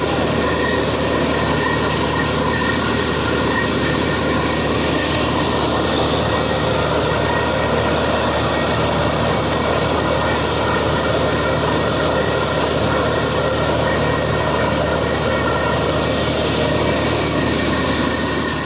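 Borewell drilling rig running: a loud, steady mechanical noise over a low engine hum, unchanging throughout.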